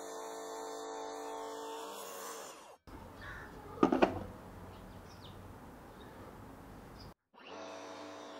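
Background music with held notes, broken by a few seconds of shop sound in which a piece of dense hardwood board knocks loudly on the table saw's top, a brief clatter just before four seconds in.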